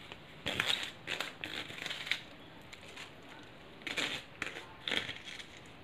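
Chopped spinach leaves rustling in a bowl as they are dropped in and handled: several short, crisp rustles.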